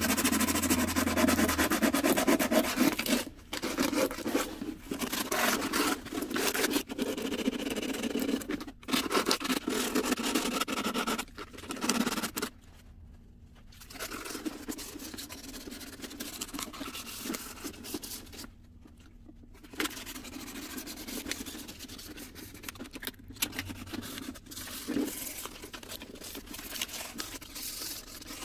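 Hand sanding of a papier-mâché mask: sandpaper rubbing over the dried paper surface in quick, short strokes. The strokes are louder for the first ten seconds or so, then softer, and they break off briefly twice.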